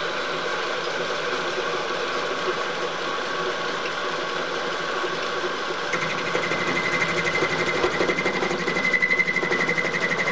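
Vertical milling machine running with a boring head, cutting aluminium: a steady machine hum. About six seconds in, a high, fast-pulsing whine joins as the cutter bites harder and the sound grows a little louder.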